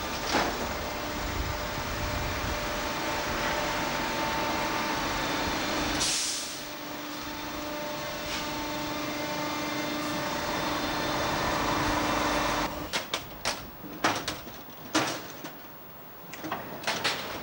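Steady drone of a sugar beet sampling gantry and its truck as the steel probe works in the load, with a short sharp hiss of air about six seconds in. From about thirteen seconds in, irregular knocks and clatter of sugar beets tumbling during unloading.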